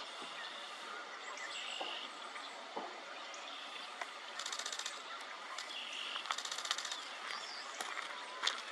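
Camera shutter firing in rapid bursts, twice, each burst a fast even run of clicks lasting about half a second, over a steady background hiss.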